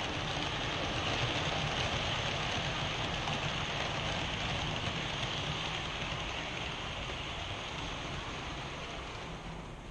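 Model freight train's wheels rolling and clattering on the rails as it passes close by, a steady rushing noise that fades away near the end as the last cars go by.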